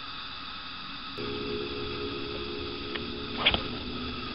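A steady low electric-sounding hum starts about a second in. A quick swish comes near the end as a spinning rod is cast.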